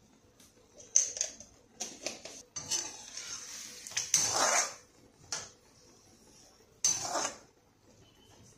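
Steel spoon scraping and clinking against a nonstick kadai as vegetables are stirred. The strokes come irregularly, loudest about four seconds in, with another burst about seven seconds in.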